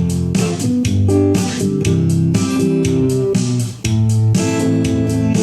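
Fender CD-60 acoustic guitar amplified through an active speaker by a pickup, strummed in a steady rhythm as a song's intro, with one brief break just before the end.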